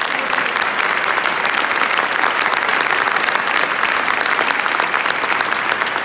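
Large audience clapping, sustained and steady applause with a dense patter of many hands, echoing in a stone church nave.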